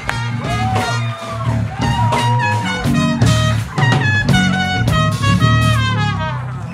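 Live house band playing: trumpet and trombone over electric bass and drums, with some notes sliding in pitch.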